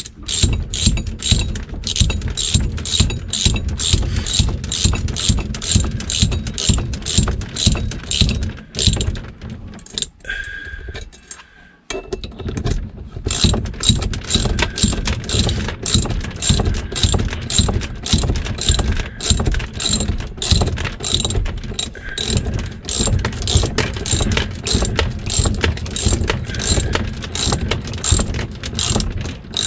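Socket ratchet clicking steadily, about three clicks a second, as it tightens the nuts on a boat cleat's through-bolts from below deck. The clicking stops briefly about ten seconds in, then carries on.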